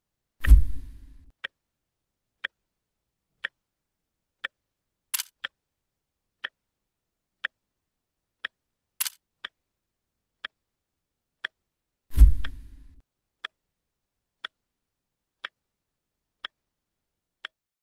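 Clock ticking about once a second, with two heavy thuds, about half a second in and again about twelve seconds in, and two sharper high clicks in between.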